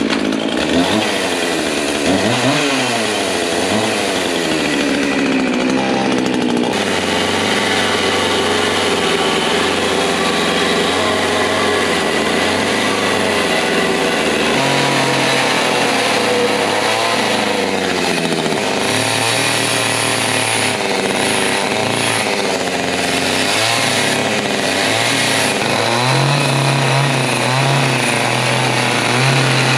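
Two-stroke carving chainsaw running and cutting into wood, its engine revving up and down again and again as the chain bites and eases off.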